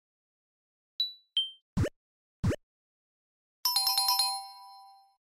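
Animated logo sound effects: two short high pings, two quick pops rising in pitch, then a fast run of about six bell-like chime notes that ring out and fade.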